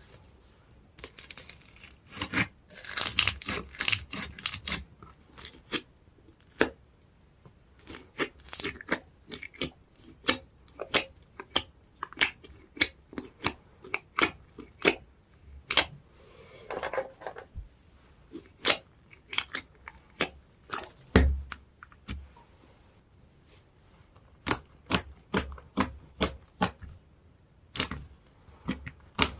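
Slime being pressed and pulled by hand, giving a steady run of sharp sticky clicks and pops, with a crackly stretch about three seconds in. The clicking is typical of a tacky slime.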